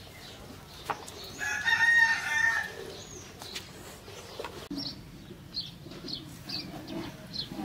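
A rooster crows once, one loud drawn-out call starting about one and a half seconds in. Later a bird chirps in short high notes, about two a second.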